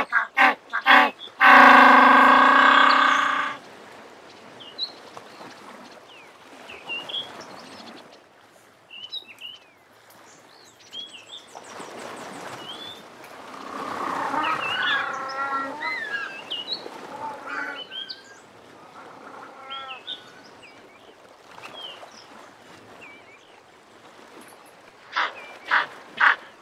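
African penguin calling: a quick series of short notes, then one long, loud donkey-like bray about two seconds in. Softer, varied bird calls follow, swelling in the middle, and a few short notes return near the end.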